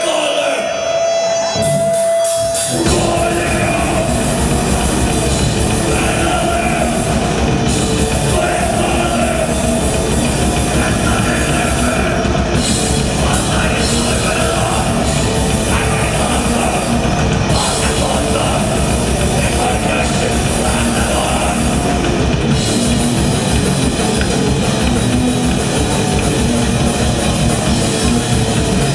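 Black metal band playing live: distorted guitars, bass and drums at full volume, coming in together about three seconds in after a brief held tone.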